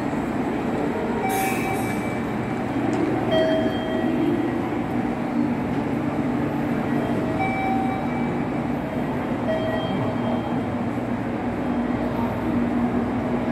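Steady hum and rumble of a stopped 885 series electric limited express train beside a station platform, with a short hiss about a second in and brief high tones now and then.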